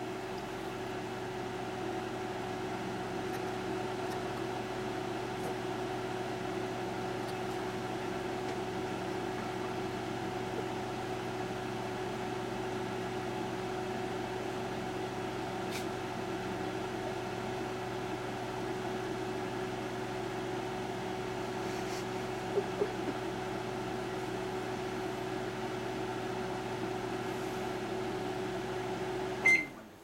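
Microwave oven running with a steady hum, heating jumbo gummi bears on its turntable, with a couple of faint clicks partway through. Near the end it stops and gives a short beep.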